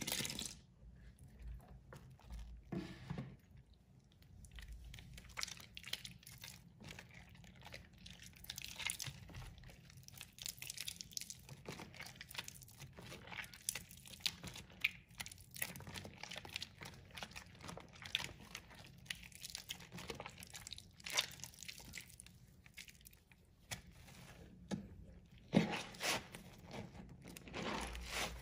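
Hands squeezing and crushing soft, water-soaked chunks of soap in a basin of foamy soapy water: a continual run of wet crunching and squelching crackles. A short splash of liquid pouring into the basin right at the start.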